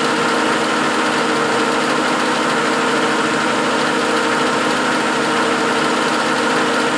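Herbert No. 4 capstan lathe running steadily: an even mechanical hum from its motor and headstock drive, with several held tones.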